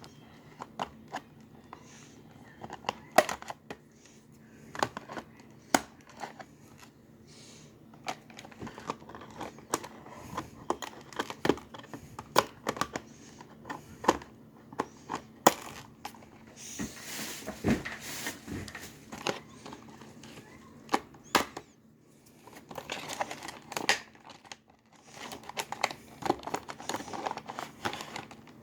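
Toy packaging being handled and opened: plastic and cardboard crinkling and rustling with frequent sharp clicks and snaps, denser crinkling in the middle and again near the end.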